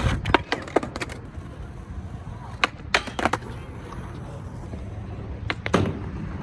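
Skateboard rolling with a steady low wheel rumble, broken by sharp clacks and knocks of the board in several clusters: near the start, about three seconds in, and again near the end.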